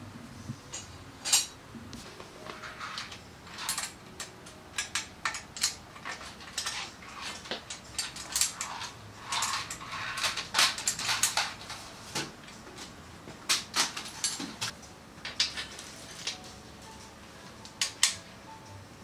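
Metal hand tools and parts clinking and clattering against motorcycle engine and frame parts during assembly: a run of sharp, irregular clicks and clanks with short pauses, busiest in the middle.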